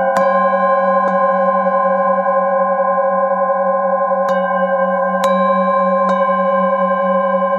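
Metal singing bowls struck in turn with a mallet, about five strikes, each adding a fresh ringing tone over the bowls still sounding together. The held low tones waver with a slow, steady beating.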